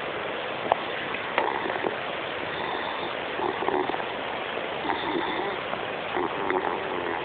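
A sleeping dog snoring, a few rough snoring breaths roughly every second and a half, over a steady hiss.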